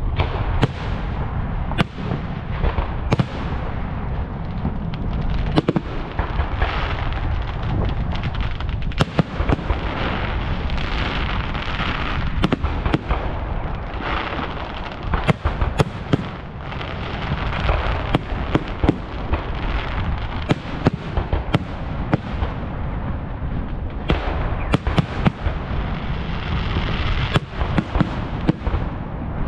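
Fireworks display: aerial shells bursting in quick succession, with sharp bangs every second or less over a continuous low rumble and stretches of hiss.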